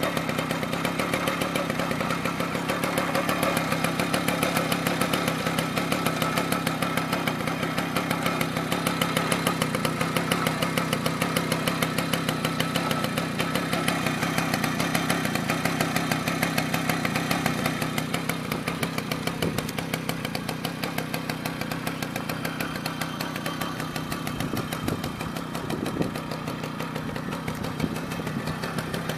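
1964 Gitan Grillo moped's small single-cylinder two-stroke engine idling steadily with a rapid, even firing beat, easing slightly in the last third.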